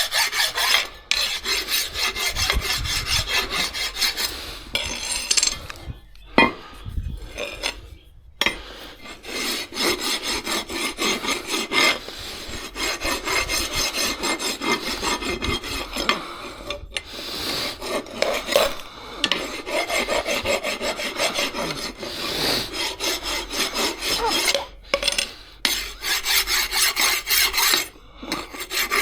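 Rapid back-and-forth scraping strokes of a hand tool on a hard surface during a car repair, in runs broken by short pauses.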